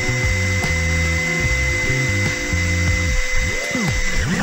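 Cordless drill running steadily with a high, even whine as it drills a pilot hole for a speaker-mounting screw into a fiberglass boat panel, stopping near the end. Background music with a steady bass plays underneath.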